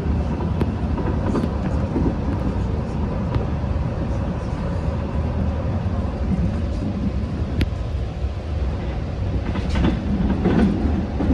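Long Island Rail Road passenger train running at speed, heard from aboard: a steady low rumble with a faint steady whine and scattered clicks from the track, a little louder near the end.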